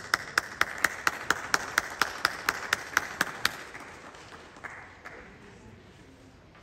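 Audience applauding, with one clapper close to the microphone striking about four times a second. The applause thins out and dies away about four to five seconds in.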